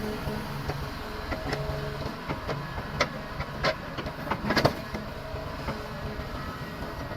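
John Deere 437D knuckleboom log loader's diesel engine running steadily, with a few sharp clunks as logs and steel parts knock together, the loudest about four and a half seconds in.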